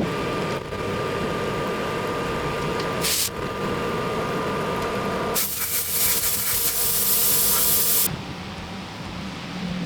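Metal lathe running while machining a steel bar shaft, a steady mechanical noise with a faint whine. A short hiss comes about three seconds in, and a longer, louder hiss runs from about five and a half to eight seconds in.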